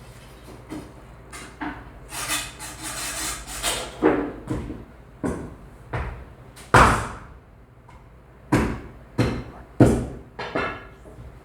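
An irregular series of about a dozen sharp, heavy knocks or chops, each ringing briefly, the loudest near the middle.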